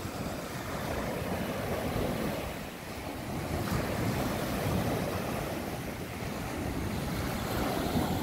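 Small waves of a calm sea breaking and washing up on a sandy shore: a steady rush of surf that eases a little and builds again.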